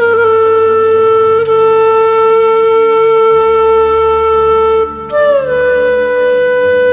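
Background music: one long held note over a low drone. About five seconds in, a new note starts a little higher and slides down in pitch.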